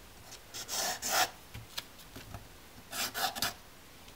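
Pencil rubbing across paper as a cutting line is marked, in two short scratchy passes, one about a second in and another near three seconds.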